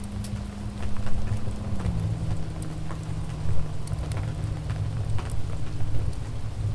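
Wood fire crackling in a fireplace: scattered sharp pops over a steady low rumble of burning logs. A soft sustained low note runs underneath and drops slightly in pitch about two seconds in.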